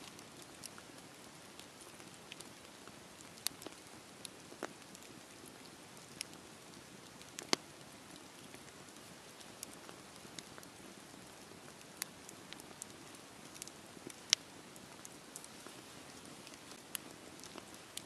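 Wood campfire burning: a soft steady hiss of flames with scattered sharp crackles and pops, two of them louder, about seven and a half and fourteen seconds in.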